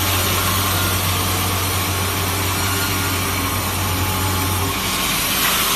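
Log sawmill machine running: a steady mechanical noise with a low hum that stops near the end.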